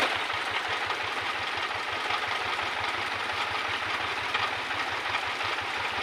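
A hand tractor's engine idling steadily, with a fast, even chugging pulse.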